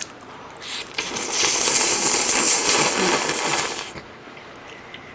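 A person slurping a mouthful of bacon cream pasta noodles in one long, loud, hissing slurp of about three seconds, starting about a second in.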